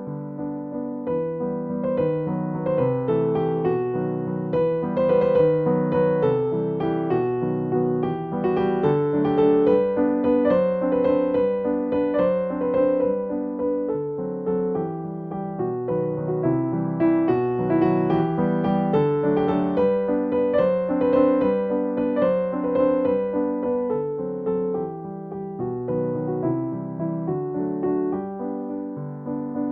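Background music: a gentle electric piano piece, a melody over soft chords.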